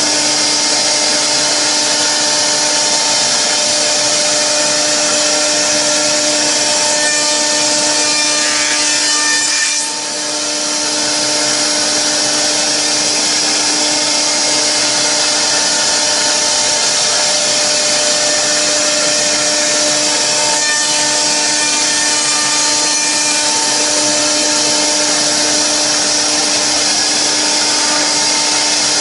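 CNC router spindle with an end mill cutting rigid polyurethane foam: a steady whine over the rasping of the cutter in the foam. It briefly drops about ten seconds in and then comes back.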